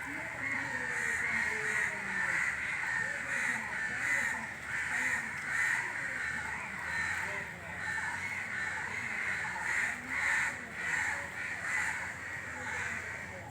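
Crows cawing repeatedly, over a steady high-pitched background chorus.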